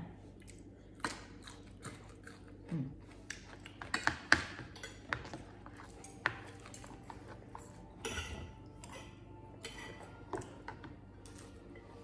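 Metal spoons and forks clinking and scraping against plates and bowls while eating, in irregular clinks with the loudest about four seconds in, along with some chewing.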